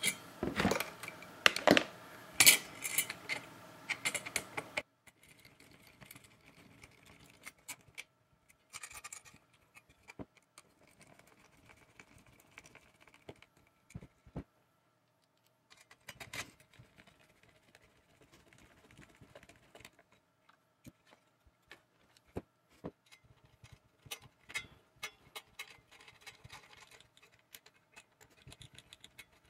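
Metal clicks and clinks of screws, a screwdriver and a wire fan grill being handled while a wooden frame is screwed onto a 120 mm fan. Busy and louder for the first five seconds, then sparse, fainter clicks with short gaps.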